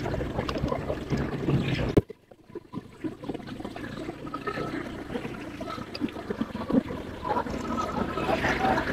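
Wind buffeting the microphone on a moving motorcycle, with road and traffic noise beneath it. A sharp click comes about two seconds in, followed by about a second of near quiet before the rushing noise returns.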